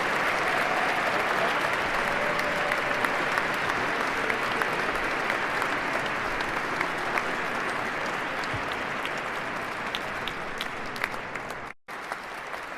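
Large crowd applauding at the end of a sung performance, a dense wash of clapping that slowly thins, with single claps standing out more toward the end. The sound cuts out completely for a moment near the end.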